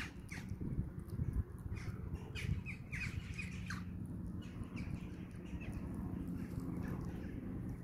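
Baby hedgehog foraging in long grass right by the microphone: a low rustling rumble with short, high squeaky notes, several close together in the first half.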